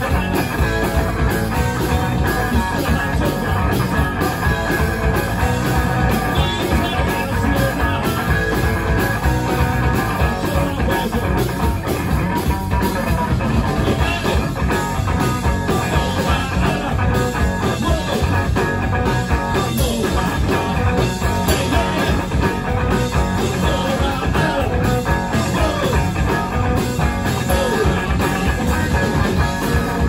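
Live rock music played loud and without a break, led by electric guitar.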